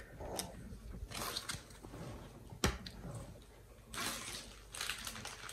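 Pokémon trading cards being handled and laid down on a pile: faint rustling and sliding of card stock in a few short bouts, with one sharp click about two and a half seconds in.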